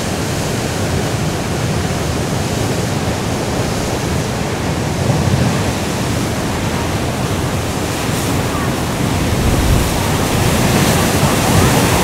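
Rough sea surf with wind: a steady wash of breaking waves, swelling a little about five seconds in and again near the end.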